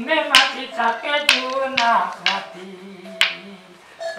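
A voice singing a melody, with a sharp snap marking the beat about once a second.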